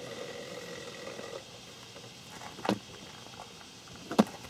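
A small scoop digging into loose, crumbly beetle-larva rearing soil, giving soft scrapes and two short knocks, the second one sharper and louder near the end.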